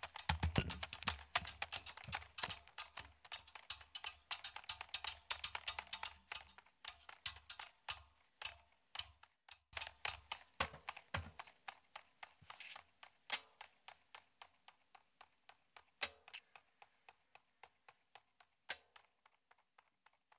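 Percussion of small sharp clicks and taps in a rapid, irregular patter that thins out and gets quieter, ending in a few scattered clicks.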